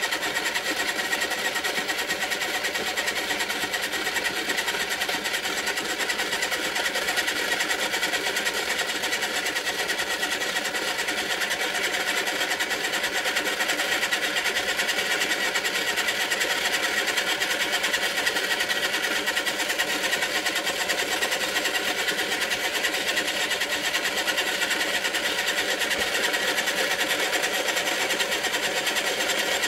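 Electric pottery wheel's motor running at a steady speed, a steady whine with several fixed tones.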